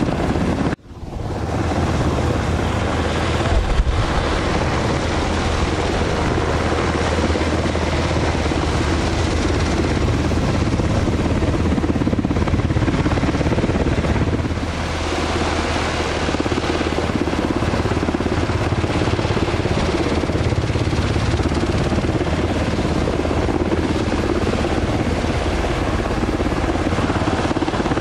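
UH-60 Black Hawk helicopter taxiing on the ground, its twin turboshaft engines running and four-blade main rotor turning, giving a steady low rotor beat under turbine noise. The sound cuts out for an instant about a second in.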